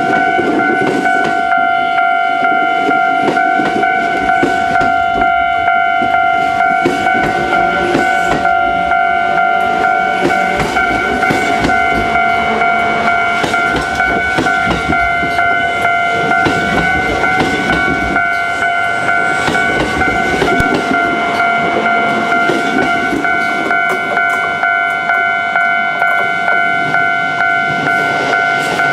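Japanese level-crossing warning bell ringing steadily, a pulsing electronic chime, while a Kintetsu limited express of 22000-series and 30000-series cars rumbles slowly past with its wheels clacking over the rails.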